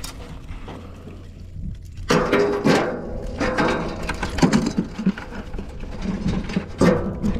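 Irregular scraping, rustling and knocking handling noises, which start about two seconds in, over a steady low wind rumble on the microphone.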